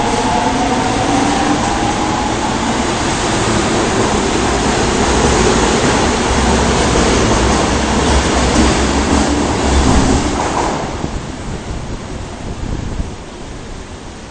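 Osaka subway 22 series train accelerating out of an underground station, with loud wheel and rail noise and a faint rising motor whine at first. The noise falls away sharply about eleven seconds in as the train leaves the platform.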